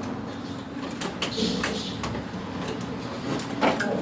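Scattered clicks and knocks of plastic parts and wire connectors being handled and plugged in inside a window air conditioner, with two quick clicks near the end.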